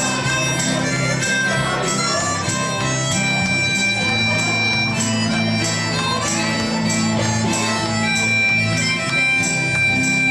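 Live acoustic country band playing an instrumental break: a harmonica leads over strummed acoustic guitars keeping a steady beat. The harmonica holds a long high note twice.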